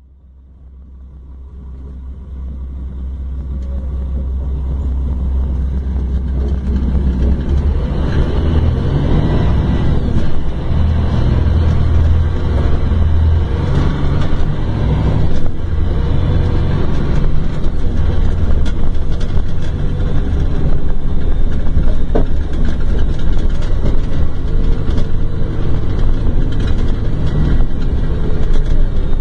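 Scania K410 coach's rear-mounted engine running with a low rumble, fading in over the first few seconds and growing louder between about eight and fourteen seconds in.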